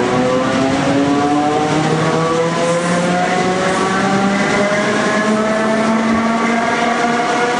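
ER2T electric train's traction motors whining, the whine slowly rising in pitch as the train accelerates, over a steady rush of wheel and running noise, heard from inside the carriage.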